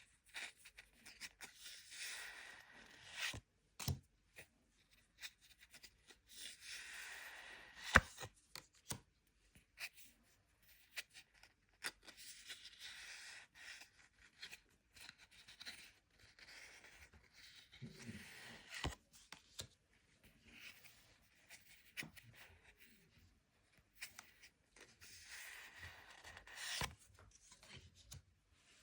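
Crisp rustling and crinkling of Pokémon card packaging being handled, in five stretches of a second or two each, with sharp clicks and taps between.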